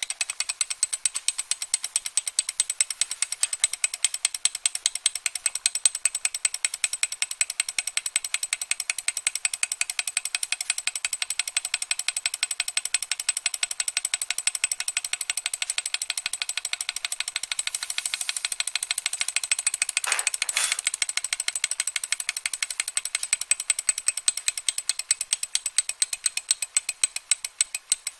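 Model Stirling (hot-air) engine running after its flywheel is flicked into motion, its crank and linkage making a rapid, even mechanical ticking that starts suddenly and holds a steady pace.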